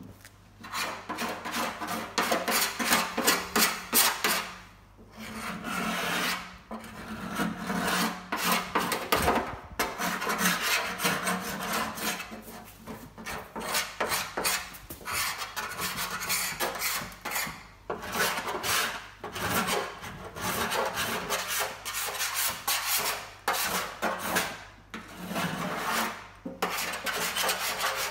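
A hand scraper is drawn again and again across the steel engine lid of a classic VW Beetle, stripping off paint in quick rasping strokes with a few short pauses between runs.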